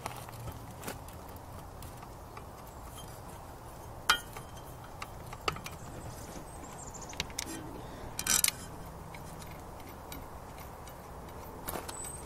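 Light metal clicks and knocks of a Johnson 9.5 HP outboard's lower unit being fitted up onto the midsection by hand, with a sharp click about four seconds in and a short rattle about eight seconds in, over a low steady hum.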